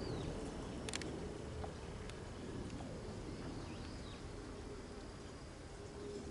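A flying insect buzzing steadily near the microphone, with a few faint bird chirps and a single sharp click about a second in.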